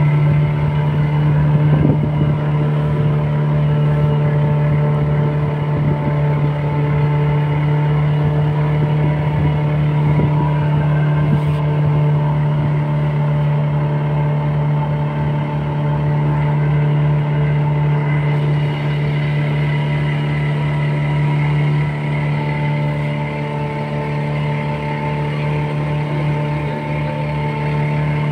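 Engine of a canopied tourist boat running steadily under way: a constant low drone with a fast, even throb, easing slightly about two-thirds of the way through.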